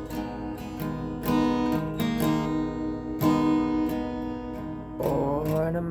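Acoustic guitar strumming chords in a steady rhythm, with no singing over it until a voice comes in near the end.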